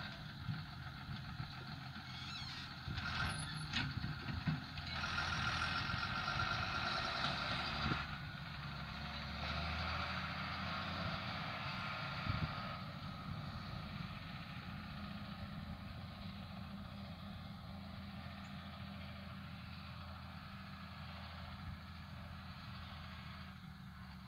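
John Deere tractor's diesel engine running under a load of round hay bales, loudest in the first eight seconds and then fading steadily as the tractor drives away.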